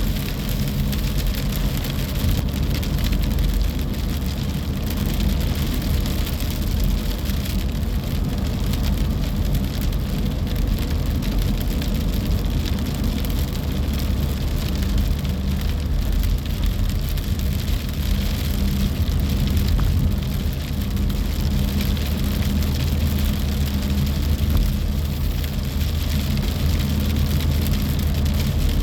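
Windstorm with rain: a steady rushing noise with a deep rumble underneath.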